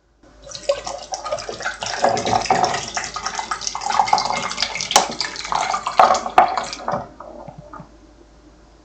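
Close-miked wet slurping and gulping of a Mogumogu strawberry jelly drink, chugged from the bottle in one go. It is a dense run of liquid squelches and small clicks for about seven seconds, then tails off and stops.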